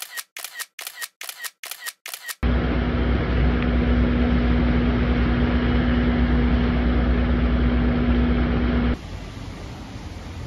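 A rapid series of about seven camera-shutter clicks, roughly three a second. Then a loud steady rumble with a constant hum, which drops suddenly to a softer steady hiss about nine seconds in.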